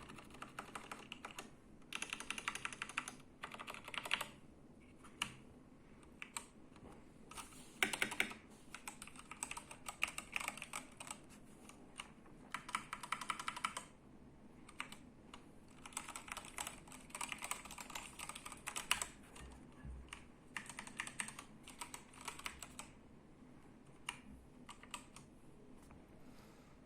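Typing on a Red Square Keyrox TKL Classic mechanical keyboard with Gateron Yellow linear switches: runs of rapid key clacks broken by short pauses, with a little room echo.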